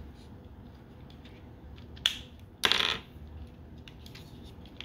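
Hard plastic parts of a Transformers action figure clicking and rattling as they are unplugged by hand: a sharp click about two seconds in, a short louder rattle just after, and another click at the end.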